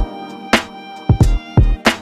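Background music with a steady drum beat over sustained instrumental tones.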